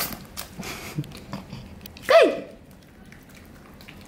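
A dog eating cake from a ceramic bowl, with chewing, licking and soft clicks in the first second or so. About two seconds in comes a loud, short voice call that rises and then falls in pitch.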